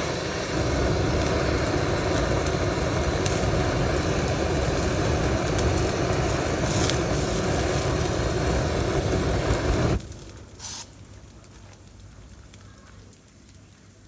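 A jet of flame, used to burn out a bees' nest, runs loud and steady with a faint hum underneath, then cuts off suddenly about ten seconds in.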